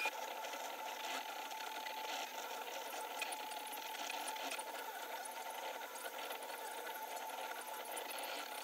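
Entina Tina2S desktop 3D printer running a print: its stepper motors drive the print head and bed, giving a steady mechanical tone with small rattles and clicks as the axes move.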